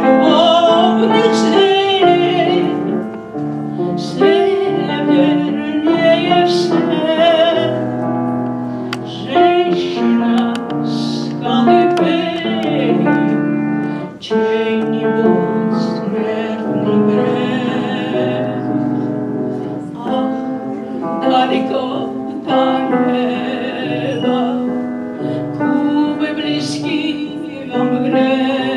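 Piano accompanying a singer who holds notes with vibrato, in a classical or romance style.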